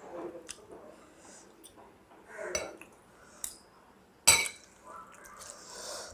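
Dishes clinking a few times as a meal is eaten. The loudest is a sharp, ringing clink about four seconds in.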